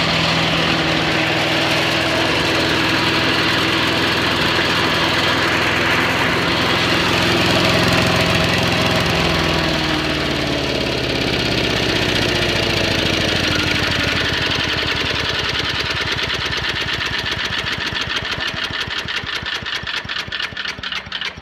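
A wood chipper's small gasoline engine runs on choke, on its first run in a good while. About nine seconds in, its speed drops, and near the end it slows to an uneven chugging in which each firing stroke can be heard.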